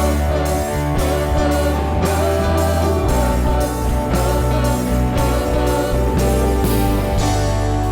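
Live worship band playing an instrumental passage: sustained chords and guitar over a steady beat.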